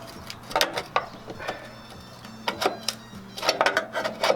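Irregular clatter and scraping of hand tools working on sheet metal, in short clusters of clicks, over a steady low hum.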